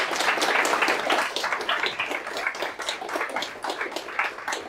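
Audience applauding, loudest at first and thinning out toward the end.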